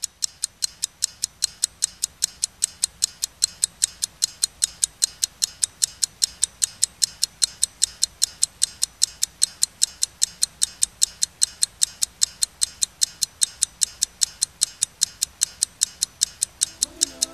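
Clock ticking: a fast, even run of sharp ticks, about four to five a second, that starts abruptly and keeps a steady pace throughout.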